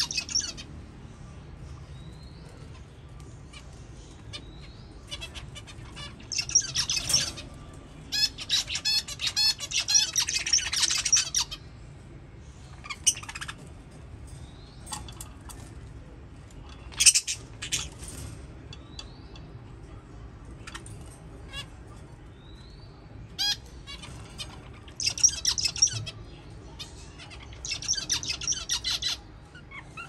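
Young budgerigars chattering and chirping: several high-pitched bursts of rapid warbling chatter, each a few seconds long, with single sharp chirps in between.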